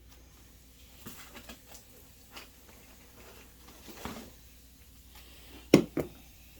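Hard objects being handled: a few light clicks and a short rustle, then two sharp knocks about a quarter second apart near the end.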